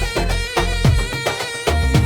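Music: sustained drone-like tones with repeated deep drum hits that each drop quickly in pitch, several times a second.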